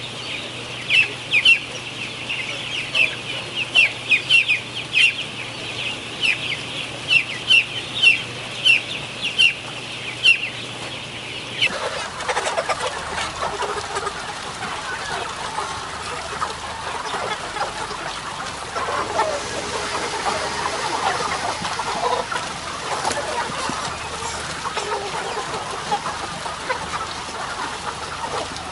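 Broiler chicks peeping, sharp high cheeps at about two a second. About twelve seconds in, the sound changes abruptly to the lower, dense clucking of a large flock of chickens.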